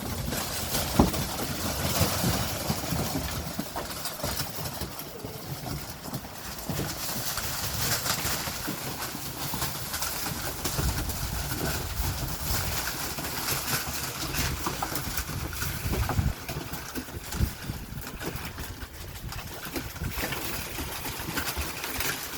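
A litter of Mastadane puppies eating together from a shared pan: a busy, steady mass of small clicks, smacks and knocks from many mouths and paws at once.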